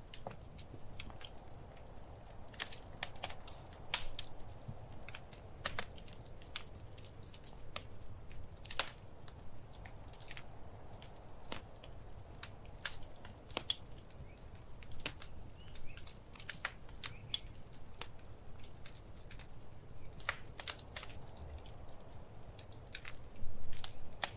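Wood fire burning in a fireplace, crackling with irregular sharp pops and snaps over a low steady rumble, with a louder burst of crackles near the end.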